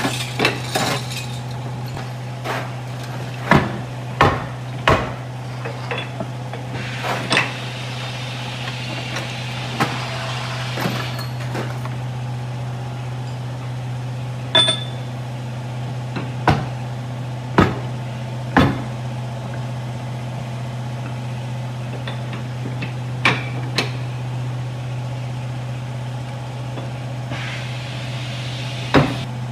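Irregular sharp knocks, like hammer or tool strikes on a tyre or metal, a dozen or more spaced anywhere from half a second to several seconds apart, over a steady low machine hum.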